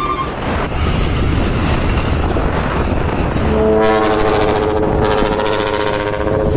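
Dump truck engine running, then a long multi-tone blast of a ship-style air trumpet horn starting a little past halfway and lasting about three seconds.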